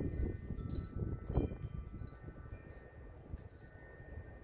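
Wind chimes tinkling: scattered, short, high bell-like notes over a steady low rumble of wind.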